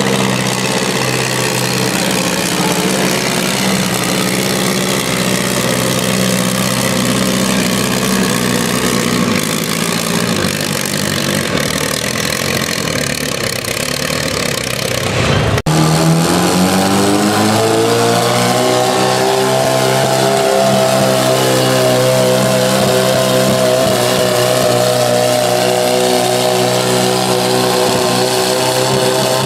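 Antique tractor engines running: first a Farmall's engine at a steady speed, then, after a sudden cut about halfway through, a Minneapolis-Moline's engine revving up over a few seconds and holding at high speed under load as it pulls the sled.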